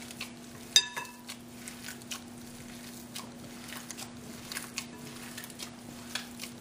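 Boiled potatoes being mashed by a gloved hand in a glass bowl: soft squishing with scattered light taps on the glass and one sharp ringing clink just under a second in, over a steady low hum.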